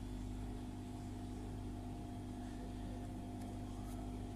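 Steady low mechanical hum with a couple of constant tones, like a running appliance or motor, and a short sharp click at the very end.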